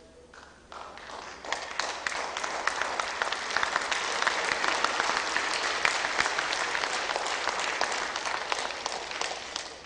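Audience applauding: a few claps under a second in, swelling to full applause, then dying away near the end.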